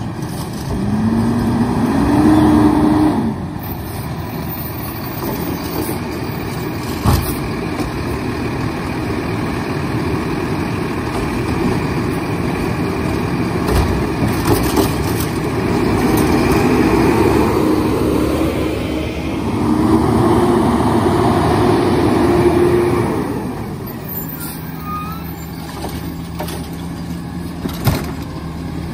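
Diesel engine of a side-loader garbage truck with an automated arm, revving up twice and holding the higher pitch as the arm hydraulics work, then settling back to idle near the end. A few sharp clunks come in between.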